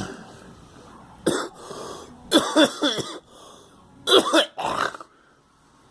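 A person coughing in four bursts about a second apart, the later bursts rougher and strung together, the coughing of someone who is sick.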